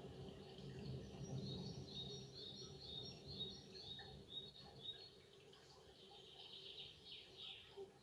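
A small songbird singing faint, quick runs of short, high, thin notes, twice, over a low steady murmur of running stream water.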